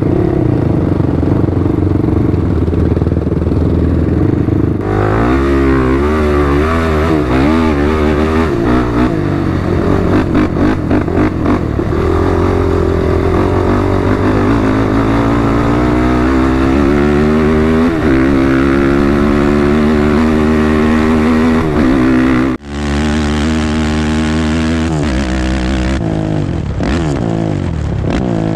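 ATV engine running while being ridden, its pitch rising and falling over and over as the throttle is worked. The sound breaks off for a moment about three-quarters of the way through, then the engine carries on.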